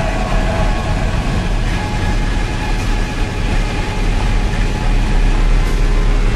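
Raw black metal recording: a dense, steady wall of distorted guitar and drums with no clear gaps or pauses.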